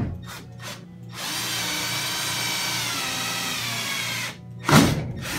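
Cordless drill boring a mounting hole through the vending machine's sheet-metal front panel: a steady high whine for about three seconds that stops abruptly. About half a second later comes one loud, short thump.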